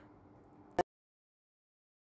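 Faint room tone, then a single sharp click a little under a second in, after which the sound cuts to dead silence.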